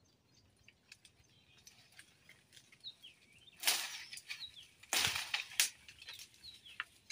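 Rustling and cracking of a giloy vine being pulled and broken off by hand: small clicks and a few short scratchy bursts in the middle, the two loudest about a second apart. Faint bird chirps in the background.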